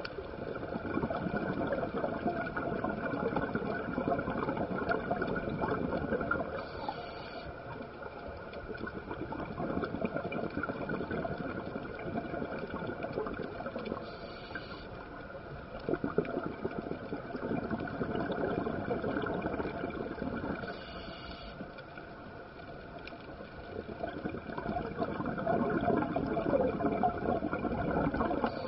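Scuba diver breathing through a regulator underwater: four long bursts of exhaled bubbles, rising and fading roughly every seven seconds, each preceded by a short hiss of inhalation.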